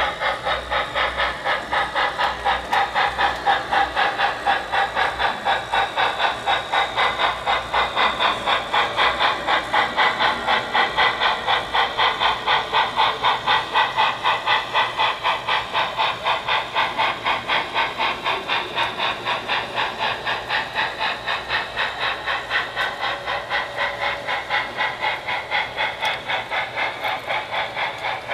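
Sound system of a model D&RGW L-131 2-8-8-2 articulated steam locomotive playing steady steam-exhaust chuffing with hiss, about five chuffs a second, heard through the model's small speaker. It fades slightly near the end as the engine moves off.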